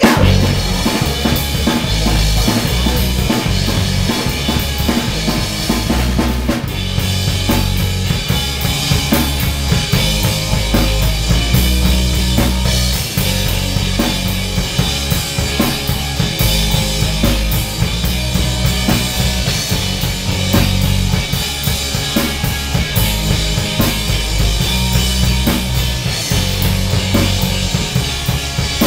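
Live punk-pop band playing loud: drum kit with bass drum and snare, electric bass and electric guitar. The full band comes in at the very start, right after a short break.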